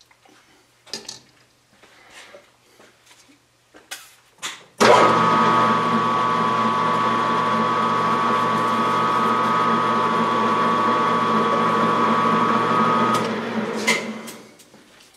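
A metal lathe starts up about five seconds in and runs steadily with a whine for about eight seconds while taking a cut, then is switched off and spins down. A few light clicks come before it starts.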